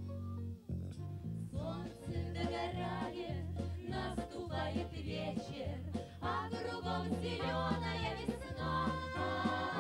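Women singing together on stage over a band accompaniment with a stepping bass line; the music breaks off briefly just after the start and the voices come in about one and a half seconds in.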